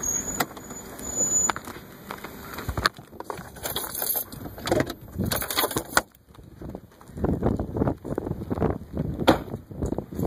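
Handling noise of a phone moved about inside a car: uneven rustling and bumping, with a few sharp knocks about three, six and nine seconds in, over wind noise.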